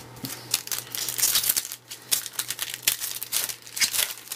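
Foil wrapper of a baseball card pack being torn open and crinkled, a dense run of sharp, irregular crackles.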